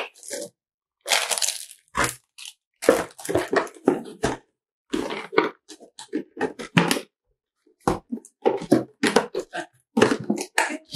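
Packaging being handled and moved about: a busy run of short crinkles, crunches and knocks from the box and its insert tray holding the curling-wand barrels.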